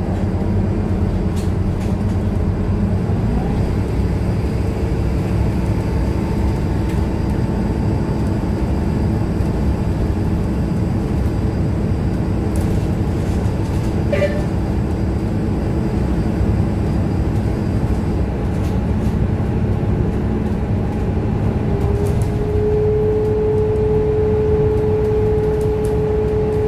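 Scania K230UB city bus heard from inside the cabin while cruising: the rear-mounted nine-litre five-cylinder diesel and road noise make a steady low drone with several whining tones over it. About three-quarters of the way through, one whine grows louder and slightly higher.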